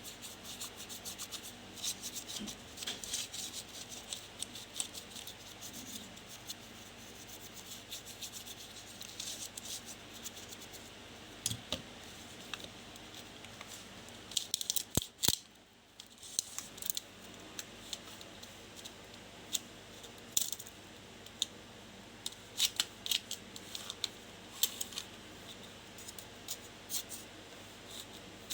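Hand work on an old plastic measuring tape: faint, irregular scratching and rubbing strokes, with a few sharp clicks about halfway through.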